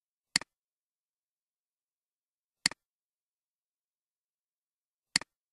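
Three computer mouse clicks about two and a half seconds apart, each a sharp click followed at once by a fainter one, against dead silence.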